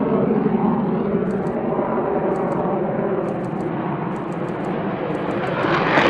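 Jet aircraft engine running with a steady drone and layered whine. Right at the end a much louder rush of noise sets in.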